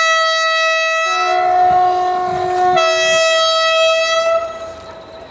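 Two-tone horn of an approaching diesel locomotive, sounded as a higher note, then a lower note, then the higher note again, about four seconds in all before it cuts off.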